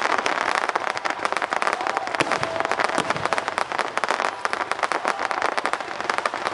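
Fireworks crackling densely and without pause: a rapid, continuous stream of small pops and snaps.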